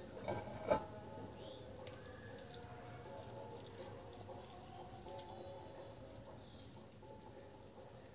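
Two light clinks against a glass bowl in the first second, then soft wet squishing of cooked rice being mixed by hand with a vegetable dish.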